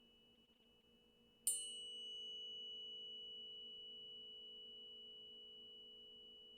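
A high metal chime of a sound bath struck once about a second and a half in, then ringing on in a long, slowly fading tone. A faint low steady drone lies underneath.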